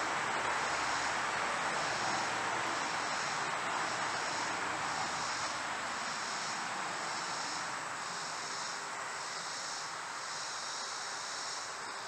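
Molten beeswax boiling in a stainless steel bowl on an electric burner: a steady sizzling hiss that fades slightly. The wax is overheated and smoking but has not reached its flash point.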